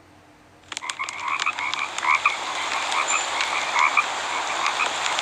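A chorus of frogs croaking, many short repeated calls overlapping with sharp clicks. The sound is low for the first moment, then comes back in suddenly.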